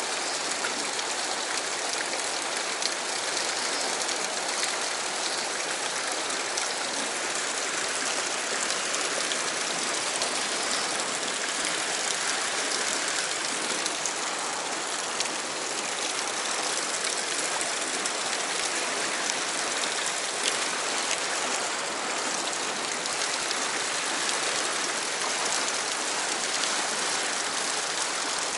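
Fast whitewater current rushing over rocks: a steady hiss with no breaks.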